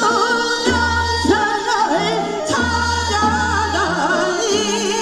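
Women's voices singing a Korean folk song (minyo) through microphones, the melody wavering and ornamented with heavy vibrato. Under the singing runs a backing accompaniment with a bass line that changes note about once a second.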